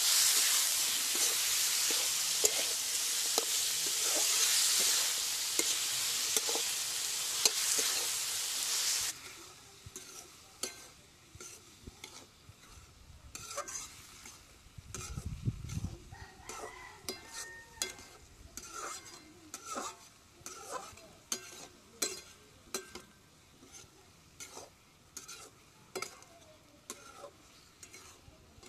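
Food sizzling in hot oil in a cooking pot while being stirred, cutting off abruptly about nine seconds in. After that, quieter scattered clicks and taps of a utensil against the pot.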